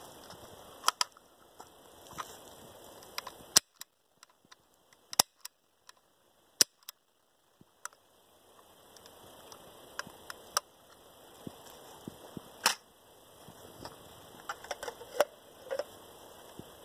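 Sharp plastic-and-metal clicks and snaps of a 3D-printed 37mm launcher's mechanism being worked by hand, a dozen or more at irregular intervals. The background drops almost to silence for a few seconds in the middle.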